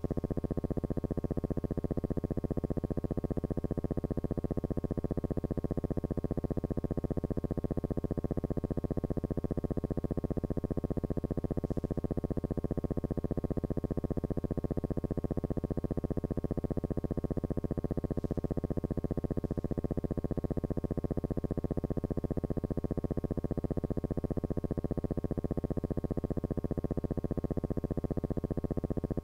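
Steady, unchanging electrical buzz with many overtones, pulsing evenly and fast, with nothing else over it: a hum on a film soundtrack that carries no sync sound.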